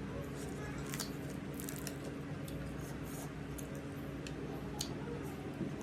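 Close-miked chewing and wet mouth sounds of someone eating, with scattered sharp clicks and crackles over a steady low hum.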